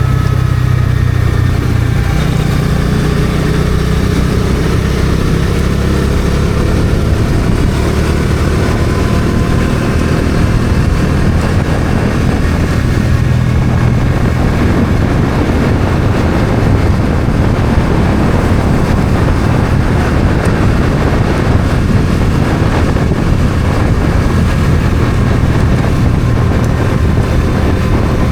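Bajaj Dominar 400's single-cylinder engine running on the road, its pitch climbing a few seconds in as the bike accelerates, then holding steady under a rush of wind noise.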